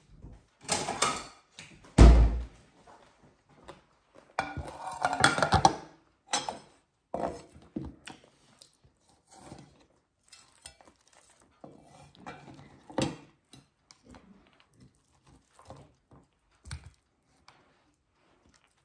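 A cleaver chopping crispy roast pork on a wooden cutting board: irregular thunks of the blade into the board mixed with the crunch of the crisp skin, the heaviest thunk about two seconds in. Lighter taps and crunches follow toward the end as the pieces are handled.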